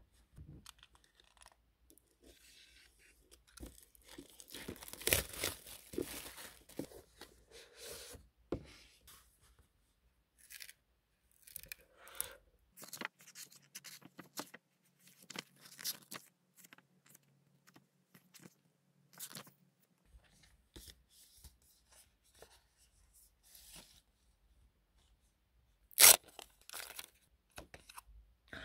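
Packaging being torn open and handled: irregular scratchy tearing and rustling. One sharp knock a couple of seconds before the end is the loudest sound.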